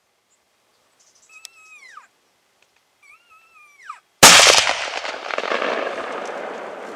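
Two short, high calls, each falling in pitch at the end, then a single loud rifle shot about four seconds in, followed by a long rolling echo that slowly dies away.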